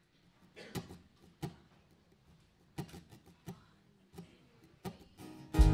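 Acoustic guitar being played: a few short, soft strokes at a steady beat, about one every 0.7 s, counting in the song, then full loud strumming starts just before the end.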